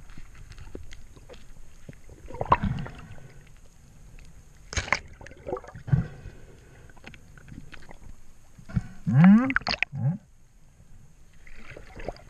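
Muffled sounds with the camera underwater: scattered knocks and clicks from the spearfishing gear and the speared fish being handled, with sloshing and gurgling water. About nine seconds in comes a short, loud sound rising steeply in pitch, of unclear source.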